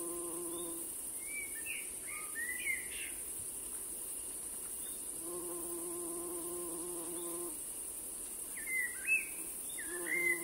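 An insect buzzing at a steady pitch in stretches of about two seconds, stopping and starting, with two bouts of short chirping bird calls in the gaps.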